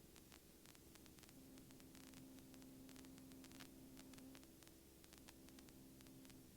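Near silence: a faint steady hum with scattered static clicks, the kind of electrical hiss and crackle heard on an aircraft intercom feed.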